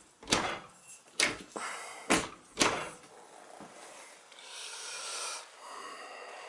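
A few sharp clicks and knocks as the control buttons of a newly installed Maytag dishwasher are pressed and its door is pushed shut, then a faint steady hiss and hum from about three seconds in.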